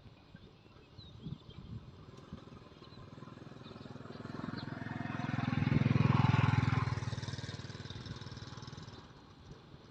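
A motor vehicle passing by: its engine noise builds over a few seconds, is loudest about six seconds in, then fades away.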